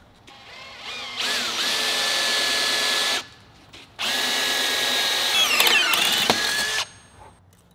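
Cordless drill boring a hole in a metal tube clamped in a vise, in two runs of about two and three seconds. Each run spins up with a rising whine, and the pitch wavers and dips late in the second run.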